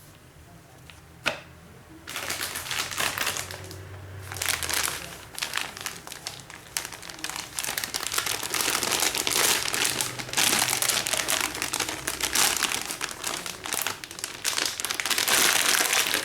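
Packaging crinkling as it is handled, in irregular bursts, after a single sharp click about a second in.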